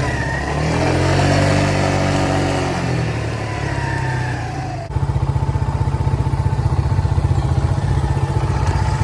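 Four-wheeler engine running under load, its pitch rising and falling with the throttle. About five seconds in it switches abruptly to a steady, rapid putter at low revs.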